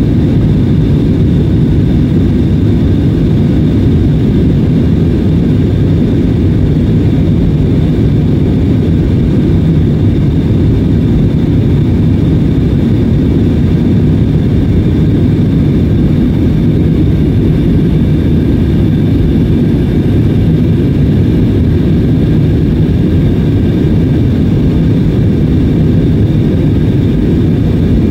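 Cabin noise of an Airbus A320-family jet airliner in flight shortly after takeoff: a loud, steady rumble of the jet engines and airflow, with faint steady high tones above it.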